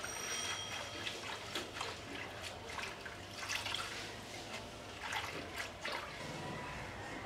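Water sloshing and splashing as hands wash leafy greens in a steel bowl, with irregular drips and trickles as the leaves are lifted into a plastic colander to drain.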